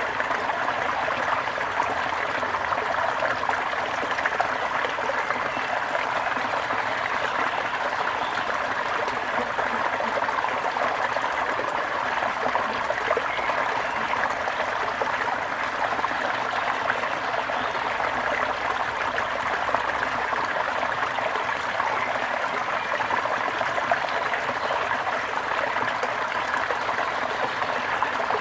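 A small brook flowing over stones, its water babbling in a steady, unbroken rush.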